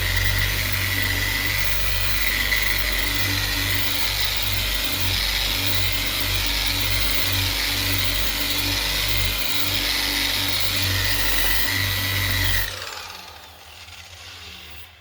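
Electric dual-action (DA) sander with a soft pad running steadily on the body filler and guide coat of a car door, a steady whine over a low hum. It stops abruptly near the end and the level falls away.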